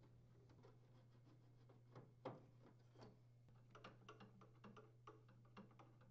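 Faint clicks and taps of a Phillips screwdriver working out the screws of a microwave hood combo's top grill, scattered and irregular, over a low steady hum.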